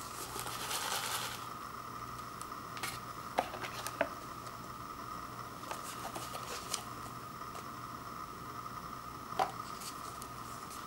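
Paper instant-noodle cup and its foil lid being handled: a short crinkle of foil near the start, then scattered light clicks and crackles of paper and plastic, over a steady faint hum.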